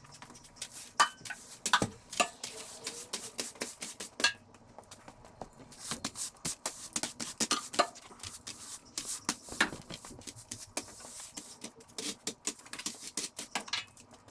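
Irregular clicks, knocks and clatter of hard objects being handled and set down, dozens of sharp taps without a steady rhythm.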